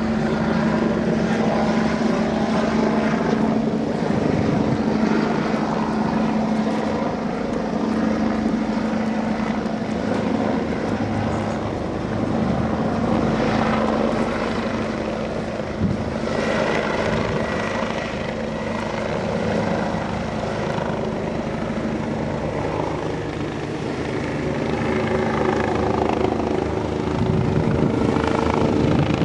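Helicopter running close by, its steady rotor and engine hum mixed with the rush of strong rotor downwash, said to be as strong as a typhoon wind, buffeting the microphone. One brief knock about halfway through.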